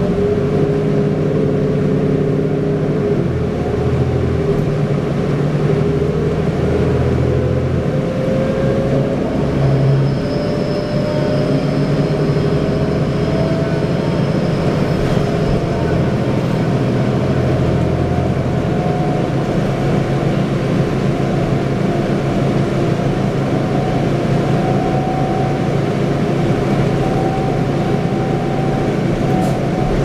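Cabin sound of a 2010 New Flyer D40LFR transit bus under way, its Cummins ISL diesel engine and Allison six-speed automatic driving. The low engine note shifts in steps during the first half, and a whine rises slowly in pitch as the bus gathers speed, then holds steady.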